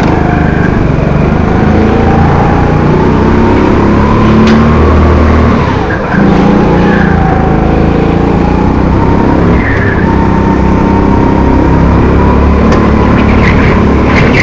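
Honda 200cc single-cylinder four-stroke engine of a Rimo Evo 5 kart running hard, heard from onboard, its pitch wavering as it laps. The revs drop off about six seconds in and climb again, with a few short tyre squeals.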